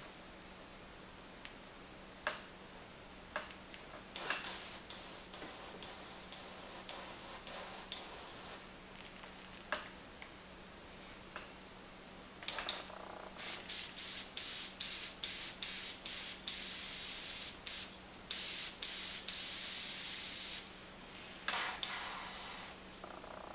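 Airbrush with a siphon-fed bottle of yellow paint spraying in repeated short spurts of hiss as the trigger is pressed and released. There are a few spurts from about 4 to 8 seconds in, then after a pause a long run of rapid spurts and longer sprays until shortly before the end.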